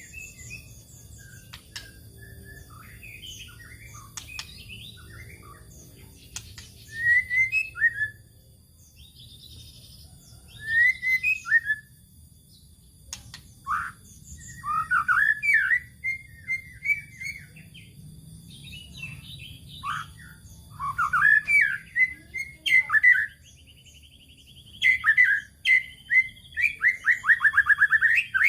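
White-rumped shama (murai batu) singing in loud bursts of varied whistled phrases and rapid rattling notes, separated by quieter pauses, with a fast run of repeated notes near the end.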